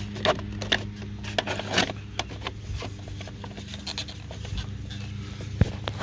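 Plastic mirror parts scraping, rubbing and clicking as a car side mirror and its slider piece are worked into the door mount, with one sharp click about five and a half seconds in, over a steady low hum.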